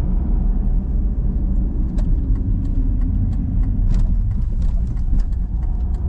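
Road and engine noise heard inside a moving car's cabin: a steady low rumble. Light clicks and rattles come and go from about two seconds in.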